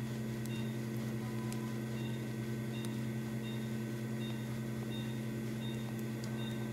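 Steady electrical hum of operating-room equipment, with a faint short high beep repeating about every 0.7 seconds.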